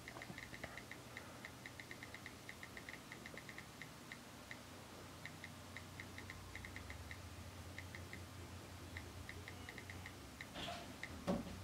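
iPhone on-screen keyboard key clicks as a text is typed: a faint, irregular run of quick ticks, several a second. A couple of louder, fuller sounds come just before the end.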